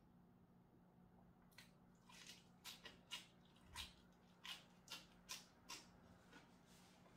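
A person chewing crunchy food close to the microphone, a lettuce-wrapped mouthful: a run of faint crisp crunches, about two a second, starting about one and a half seconds in and stopping near the end.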